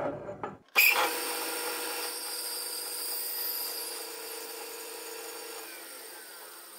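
Vertical bandsaw blade cutting lengthwise through a small metal bushing to split it. The cut bites in suddenly about a second in and runs as a steady ringing saw noise that fades gradually toward the end. Just before, the steel vise scrapes as it is slid across the saw table.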